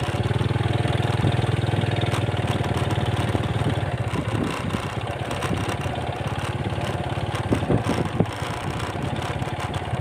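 Small motorcycle engine running steadily as the bike rides across rough grass. It is stronger for the first few seconds, then eases a little, with a couple of knocks about eight seconds in.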